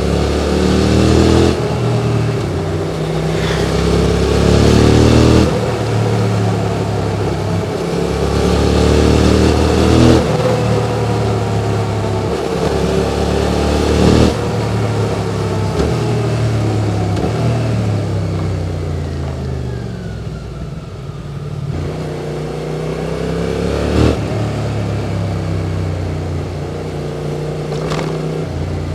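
QJ Motors SVT650X motorcycle engine through an Arrow Racetech slip-on exhaust, pulling through the gears. Its pitch climbs and falls back sharply at each of several upshifts. It eases off and slows around the middle before pulling away again, with wind rush over it throughout.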